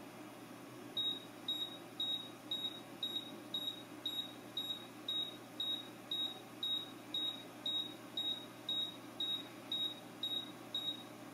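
Electronic beeping from a Seacam vacuum leak detector: a steady train of short, high-pitched beeps, about two a second, starting about a second in, over a faint steady hum.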